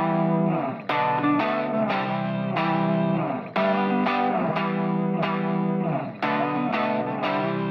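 Background music: an electric guitar with effects, its notes struck again and again in a steady, repeating pattern.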